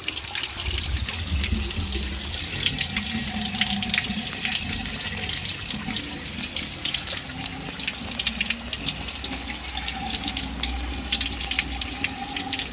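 Rainwater gushing and gurgling down a rooftop floor drain just cleared of the sack that blocked it, with rain and a pouring stream splashing on the flooded concrete.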